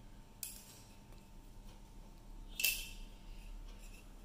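A metal spoon clinking against a bowl while spooning out chia seeds: a light tap about half a second in, then a sharper clink with a short ring about two and a half seconds in.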